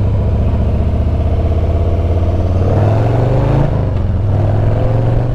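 Harley-Davidson Street Bob 114's Milwaukee-Eight 114 V-twin engine pulling at low revs. The pitch climbs, then drops about three and a half seconds in as it shifts into second gear, and starts rising again. There is no rattle from the new flush-mounted gas cap.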